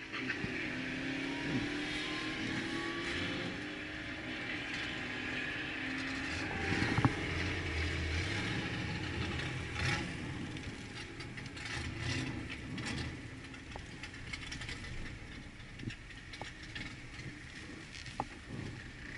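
Ford Explorer Sport's twin-turbo EcoBoost V6, heard from inside the cabin as the SUV pulls away and creeps along at low speed. Its engine note rises over the first few seconds, and scattered clicks and knocks come through the cabin.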